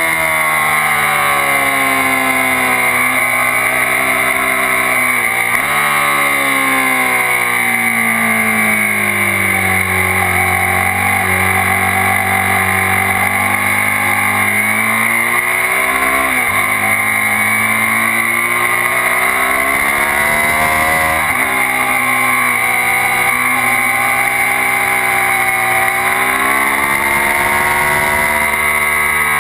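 Suzuki SV650's 645 cc V-twin engine at speed on track, its pitch climbing and dropping sharply at several gear changes and easing off and rising again through corners, with wind rushing over the fork-mounted camera.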